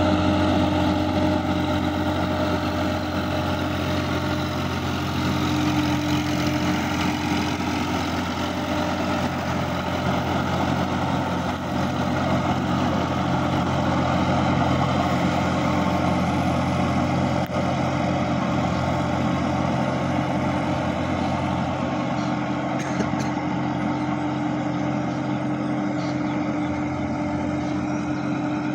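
Sonalika DI-50 RX tractor's diesel engine running steadily under load as it ploughs through a flooded, muddy field.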